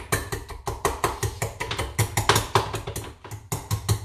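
A fork mashing avocado and jarred salsa in a bowl, knocking and tapping against the bowl several times a second.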